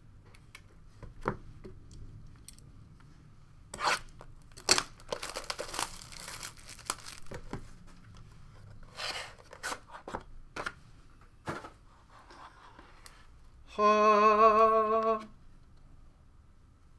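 Hands tearing and crinkling the packaging off a trading-card box and handling the cardboard, with clicks and rustles. Near the end a wavering pitched tone lasts about a second and a half and is the loudest sound.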